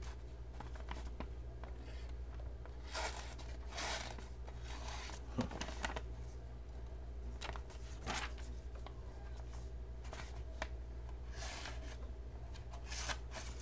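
A short D2 steel flipper-knife blade slicing and tearing through a sheet of paper in several short strokes a few seconds apart, with light clicks of handling between them. The cuts are ragged rather than clean, because the short cutting edge runs out partway through the slice.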